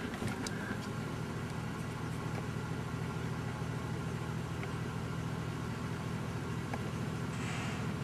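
Toyota Tacoma pickup's engine running steadily at low revs.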